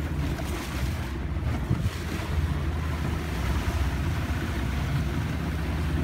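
Motorboat engine running steadily under way, with water rushing past the hull and wind buffeting the microphone.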